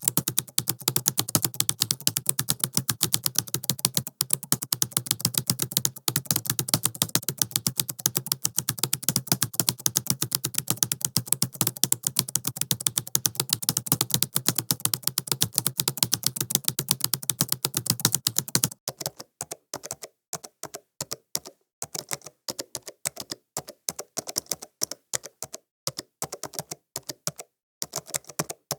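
Computer keyboard being typed on: a fast continuous run of key clicks over a low hum for most of the time, then, about two-thirds of the way through, the hum drops out and the keystrokes come slower in short runs with gaps of quiet between them.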